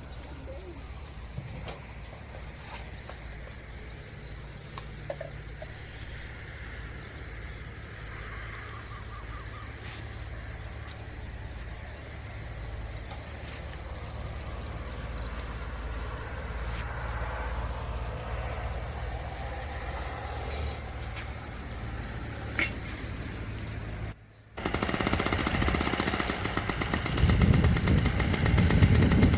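Steady night chorus of insects, crickets among them, with high, evenly pulsing chirps over a low hum. About 24 seconds in it cuts off abruptly to a much louder low rumble.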